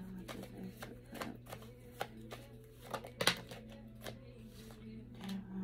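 Tarot cards being shuffled and handled: a run of short flicks and taps, with one louder snap about three seconds in.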